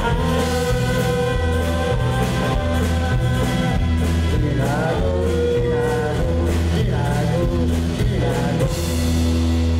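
Live band playing rock music: a man singing over acoustic guitar, bass guitar and a drum kit, at a steady beat.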